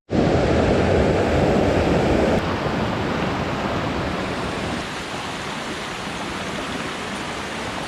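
Mountain stream rushing over rocks: a steady, loud wash of water, fuller and slightly louder for the first two seconds or so.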